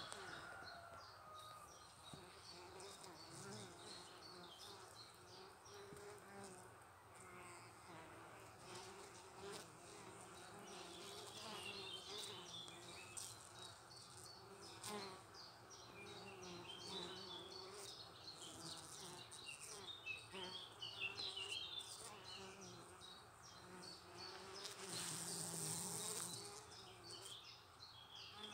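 Honeybees buzzing around the entrance crack of a log hive: a faint, steady hum of wings, with faint high chirps above it. A brief hissing rush comes near the end.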